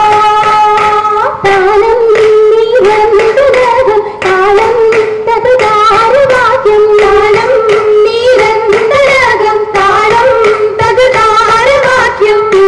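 Girls singing an Oppana song, a Mappila wedding song, to a steady rhythm of hand claps.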